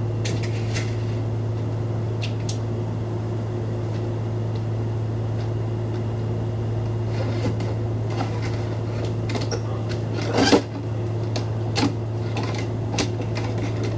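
Interior of a Nishitetsu Tenjin-Ōmuta Line train car: a steady low hum with scattered light clicks and rattles, and one louder knock about ten and a half seconds in.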